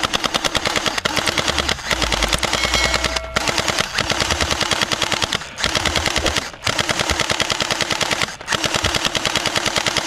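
Toy AK-47-style blaster firing on full auto: a rapid clatter of shots in repeated bursts of about a second, with short breaks between them.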